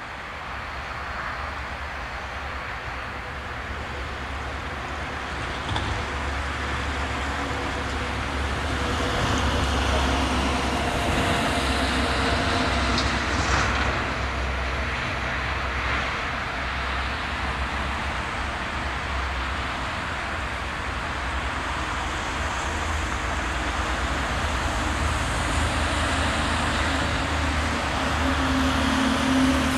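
Electroputere LDE 060-DA diesel-electric freight locomotive approaching from a distance, its Sulzer diesel engine a low, steady hum that grows gradually louder.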